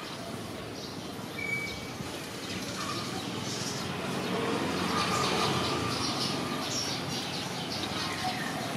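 Outdoor background noise with birds chirping, and a vehicle rumble that grows louder through the second half.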